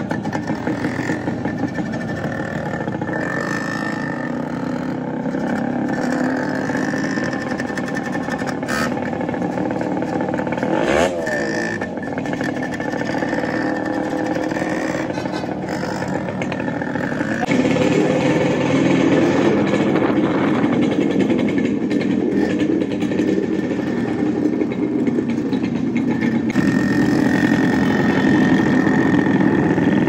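Yamaha RX two-stroke single-cylinder motorcycle engine running under way, heard from the rider's seat. The sound steps up in loudness about two-thirds of the way through and again near the end.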